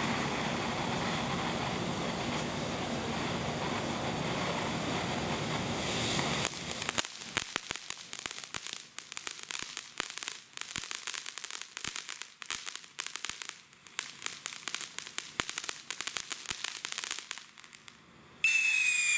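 Black Cat Superior Star Fish fountain firework spraying with a steady hiss for about six seconds, then changing to dense crackling for about ten seconds. Near the end a loud shrill whistle starts abruptly.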